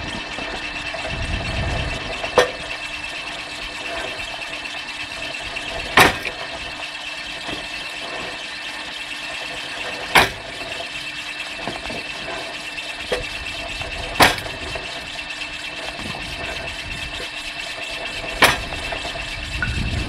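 Homemade belt-driven mechanical log splitter running steadily with a hum, its gearbox-driven cleaver chopping down through firewood rounds. Five sharp chops, about four seconds apart.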